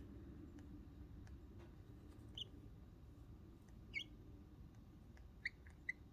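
Baby lovebird chicks giving a few short, high, squeaky peeps, faint and spaced a second or more apart, the begging calls of chicks that are still hungry.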